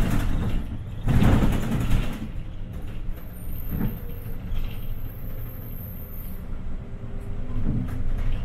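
City bus running, its engine and road rumble heard from inside the cabin. There is a loud burst of compressed-air hiss about a second in.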